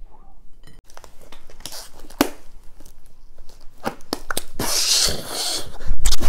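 Gloved hands rubbing and handling: scattered clicks and rustles, then a longer rushing rub about four and a half seconds in.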